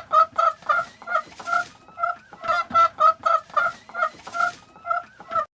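Chicken clucking: a quick run of short clucks, about three or four a second, that cuts off suddenly at the end.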